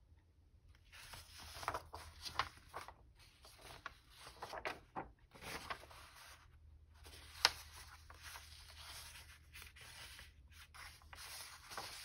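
Sheets of printed craft paper being handled and shuffled: irregular rustling and rubbing from about a second in, with a sharp tap about seven seconds in.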